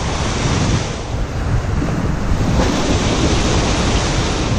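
Wind blowing across the microphone over a steady rush of ocean surf.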